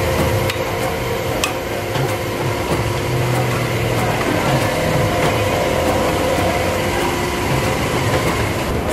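Steady mechanical hum with a few short, light clinks of a steel ladle against a large steel pot of nihari as it is served.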